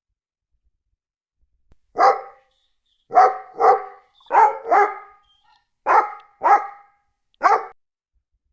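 Dog barking: eight short barks, several in quick pairs, starting about two seconds in.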